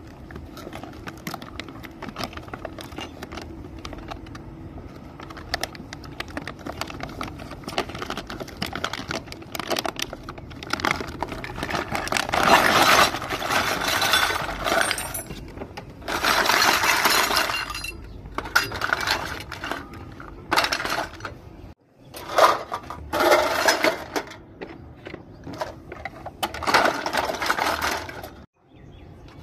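Unboxing a plastic toy kitchen set: packaging rustling and crinkling in bursts of a second or two, with many small clicks and clinks from the plastic toy pieces being handled.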